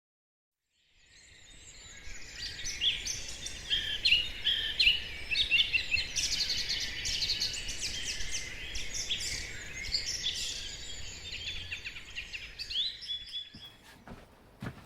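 Songbirds singing: overlapping chirps and trills that fade in about a second in and cut off abruptly near the end, followed by a few short clicks.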